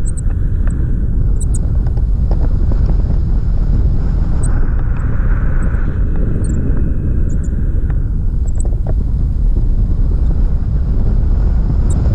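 Airflow buffeting the microphone of a pole-mounted camera on a paraglider in flight: a loud, steady low rumble of wind noise.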